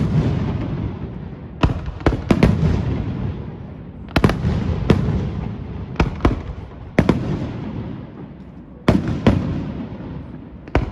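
Aerial fireworks shells bursting overhead: a string of sharp bangs, many in quick pairs, each followed by a rolling echo that dies away before the next.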